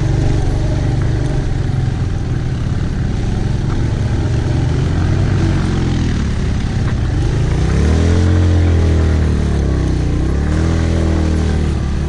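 Motorcycle engine running at low speed on a rough gravel mountain track, its pitch rising and falling several times with the throttle in the second half, over a steady rushing noise.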